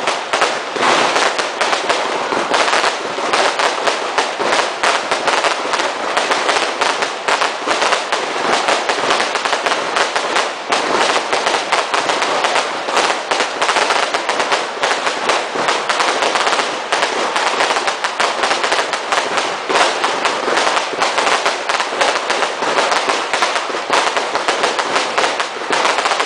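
Class 2 consumer fireworks and firecrackers going off in a dense, continuous barrage of overlapping bangs and crackling, with no pause.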